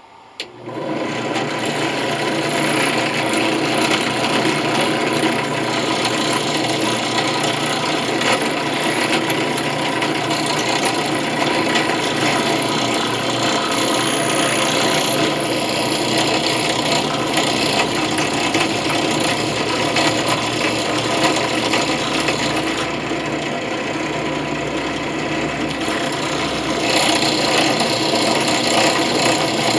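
Electric power tool switched on about half a second in, then running steadily with a continuous rasping, grinding sound over the hum of its motor.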